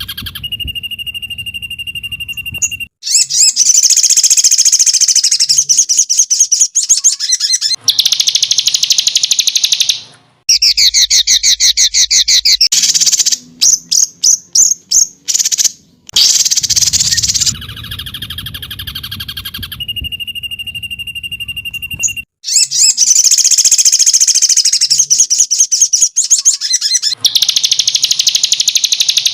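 Songbird 'tembakan' song from a bird-training master recording: loud, rapid high-pitched trills and chip bursts, with a brief held whistle, in spliced segments that cut in and out abruptly. The sequence repeats as a loop partway through.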